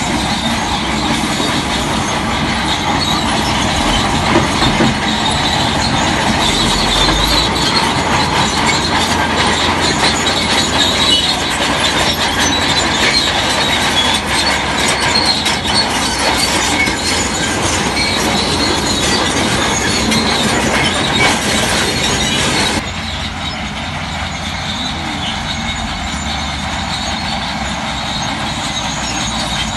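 Crawler bulldozer working: its steel tracks squeal and clank over the engine's steady running. About three quarters of the way through the sound drops abruptly and becomes quieter, then the machine noise carries on.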